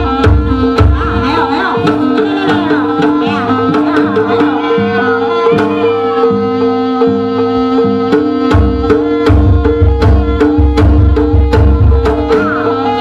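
Live jaranan ensemble music: hand drums and regularly spaced sharp strikes over sustained gong-like tones, with a wavering melody line above. The deep drumming grows heavier about two-thirds of the way through.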